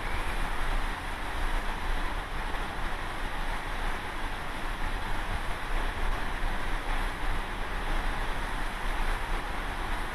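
Steady wind buffeting the microphone over the continuous rush of the sea from a ship under way.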